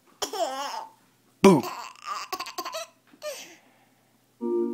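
A baby laughing in several bursts, the longest a run of quick laughs just after an adult says a playful "boo" about a second and a half in.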